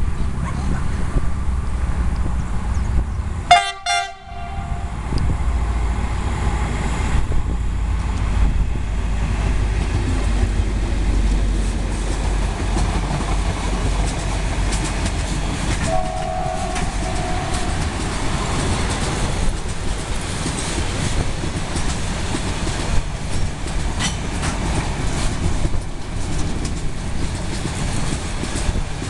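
Freight train passing close by behind a CRRC CDD6A1 diesel-electric locomotive. A short, loud horn blast sounds about three and a half seconds in, and a heavy low engine rumble builds as the locomotive goes past. The rumble and clatter of covered freight wagons rolling by carries on to the end, with a short, fainter tone about midway.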